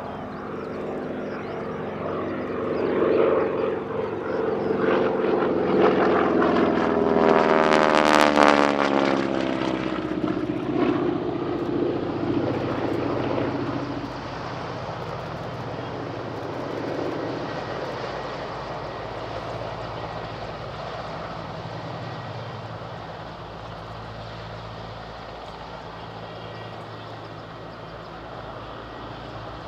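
North American SNJ-3 Texan's nine-cylinder Pratt & Whitney R-1340 Wasp radial engine and propeller in aerobatic flight. The sound swells to its loudest about eight seconds in as the plane passes close, dropping in pitch as it goes by, then fades to a steadier, more distant drone. The engine note rises again near the end.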